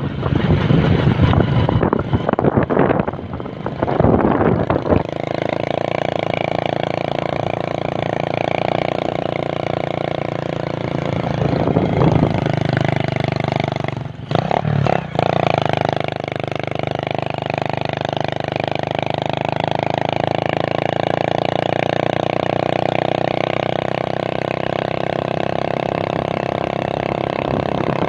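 Loud, gusting wind noise on the microphone for about five seconds, then a small engine running steadily, with a brief dip in its sound about fourteen seconds in.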